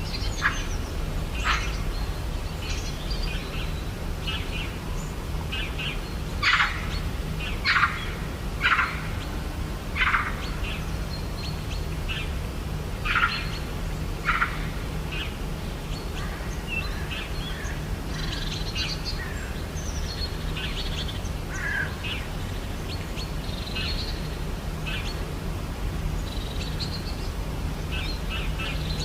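Birds chirping and calling: many short calls, the loudest bunched in the first half, over a steady low hum.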